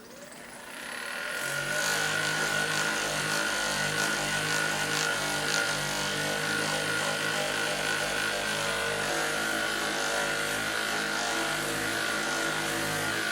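Hypervolt percussion massage gun running on the pec and rotator cuff: a steady motor buzz with a constant high tone, building up over the first second or two and then holding even.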